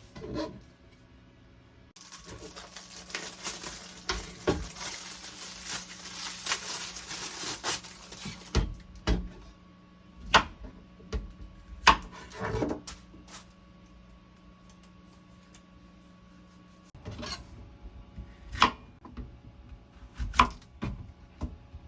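Kitchen handling sounds: dishes, pots and utensils knocked and clinked one at a time. Before them comes a stretch of about six seconds of dense, crackly hiss, and after them a quiet pause before more knocks near the end.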